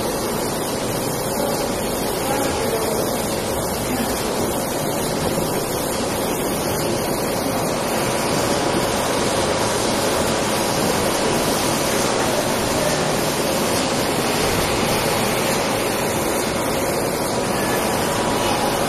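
Automatic rotary bottling line for 500 ml plastic bottles running, its star wheels and conveyor making a steady, even machine noise with a faint steady hum.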